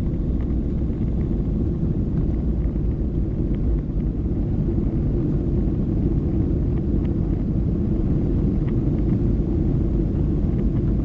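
Steady low rumble of a Boeing 737 airliner's jet engines and airflow heard inside the passenger cabin.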